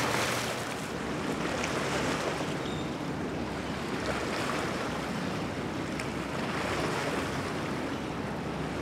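Steady wind and water wash with the low, even drone of motorboat engines.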